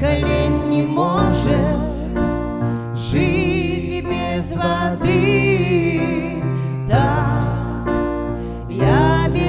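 Live worship band playing a slow song: a sung melody with vibrato over electric guitar, bass guitar and keyboard, the bass holding long notes that change every second or two.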